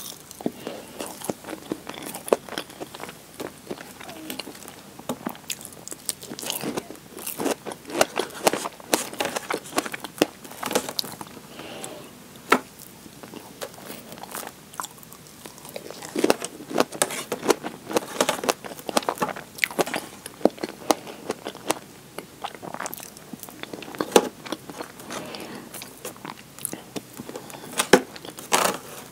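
Close-miked eating sounds of strawberry cream cake: soft chewing and wet mouth clicks, mixed with sharp irregular clicks and scrapes of a metal fork against the plastic cake tray.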